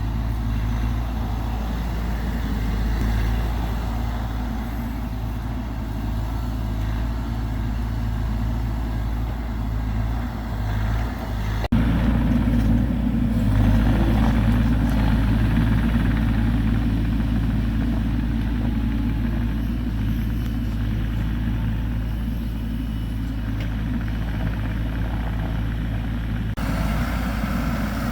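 Bobcat E42 mini excavator's diesel engine running steadily while it digs, with sudden jumps in the sound about twelve seconds in and again near the end.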